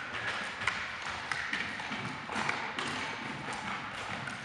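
Jumping stilts' rubber feet tapping on a gym floor as the wearer bounces in place: repeated short taps, roughly one or two a second.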